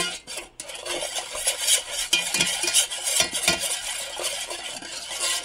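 Metal teaspoon stirring salt and sugar into water in a stainless steel saucepan, scraping and clinking against the bottom and sides as the granules dissolve into a brine, with a short pause about half a second in.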